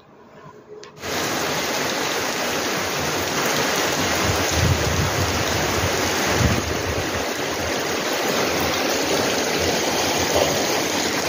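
Steady heavy rain falling on a paved lane: a dense, even hiss that starts abruptly about a second in.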